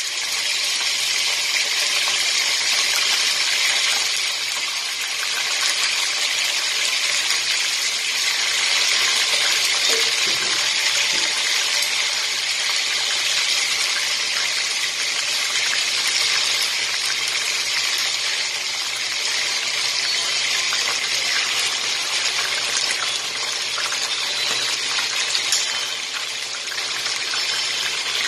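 Chicken pieces frying in hot oil in a pan: a steady sizzle with fine crackles.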